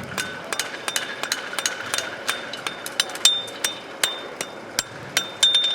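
Several farriers' hammers striking horseshoes on anvils: irregular, overlapping metal clangs, some of the harder blows leaving a short bright ring.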